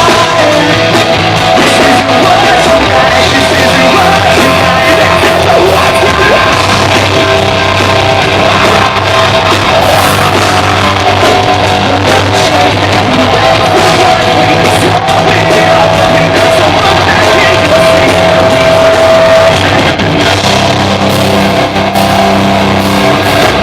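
Live rock band playing loud and distorted: heavy guitars, bass and drums with yelled, screamed vocals, heard through a phone or camera microphone that is overloaded by the volume.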